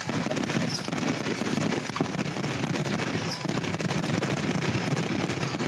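Fireworks crackling and popping in a rapid, continuous stream.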